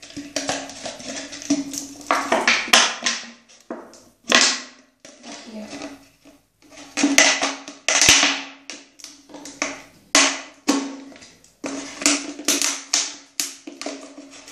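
Scissors cutting through a thin plastic drinks bottle: an irregular series of crackling snips and crinkles as the blades work around the bottle, with a faint steady hum underneath.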